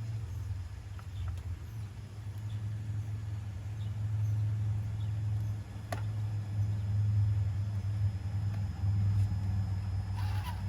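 RC rock crawler's electric motor and geared drivetrain running at crawling speed, a low drone that swells and eases with the throttle and grows louder partway through. A single sharp click about halfway through.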